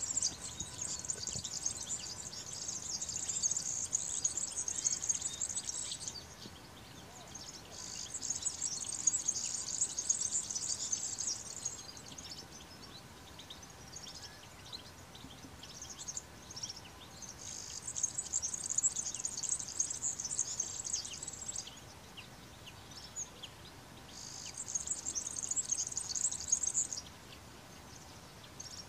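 European goldfinches singing: a fast, high, tinkling twitter that comes in four bouts of several seconds each, with short pauses and scattered single notes between them.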